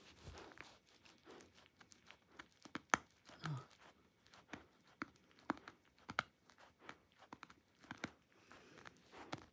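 Dachshund chewing and tearing at a plush toy: irregular small snaps, crunches and rips of teeth working the fabric and stuffing, loudest about three seconds in.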